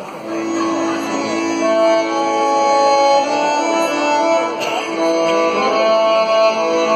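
Instrumental folk music for a Vlach dance starting up: a melody line of held notes.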